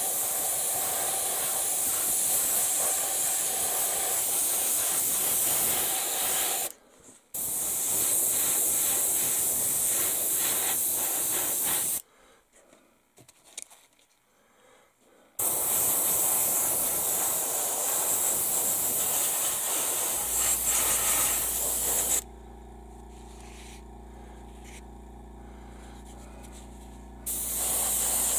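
Airbrush hissing as it sprays primer, in bursts: it cuts off for a moment about seven seconds in and for about three seconds around twelve seconds in, then runs again. Near the end it drops to a quieter steady hiss for about five seconds before spraying at full strength again.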